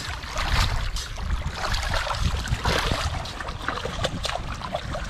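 A small hand shovel digging into wet sand under shallow seawater, with irregular splashing and sloshing as the blade churns open a mantis shrimp burrow. A low rumble runs underneath.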